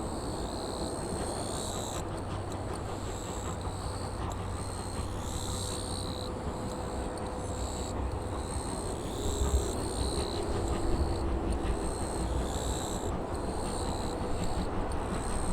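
Cicadas buzzing in repeated high phrases that start and stop every second or so, over a steady low rumble that swells briefly about nine to ten seconds in.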